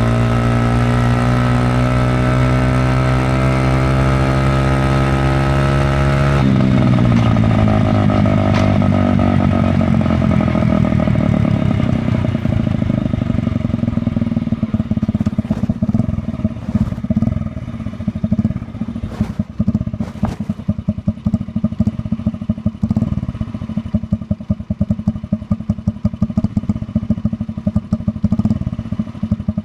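Honda Magna 50's single-cylinder four-stroke engine, barked through the stock muffler with its baffle removed, pulling at a steady, slowly rising pitch. About six seconds in the throttle closes and the engine note falls away as the bike slows, settling into an uneven putting beat with sharp pops.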